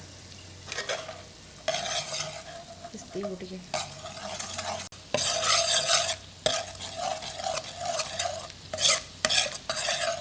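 Chopped garlic sizzling in melted butter in a pan, stirred so that the utensil scrapes the pan in repeated strokes.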